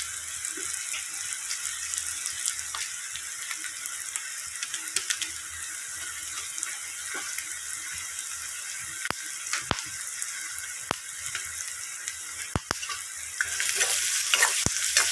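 Sliced onions and whole spices frying in hot oil in a cast-iron kadai: a steady sizzle with scattered sharp pops. The sizzle grows louder near the end as a spatula stirs the onions.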